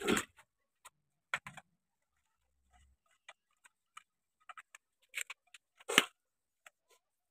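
A splash as leafy greens are dunked in a metal pot of water, then scattered light clicks and knocks from handling a green bamboo tube packed with food, with one loud knock about six seconds in.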